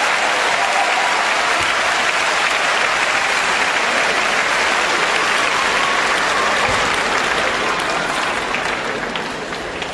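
Crowd of spectators applauding in a large hall after a rally, a dense steady clapping that dies down near the end.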